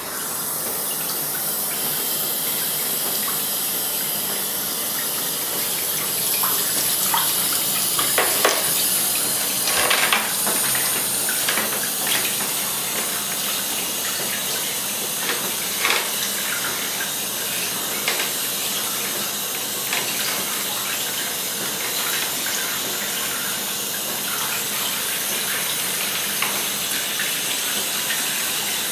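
Steady rushing noise, with a few short clicks and knocks scattered through the middle.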